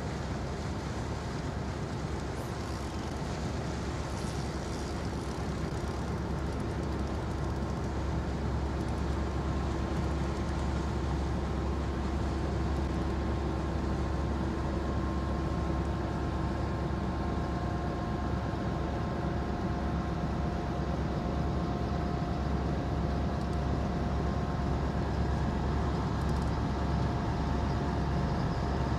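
Diesel engine of a passing river motor vessel droning steadily, a low hum with a few steady tones over it, growing slowly louder as the boat approaches.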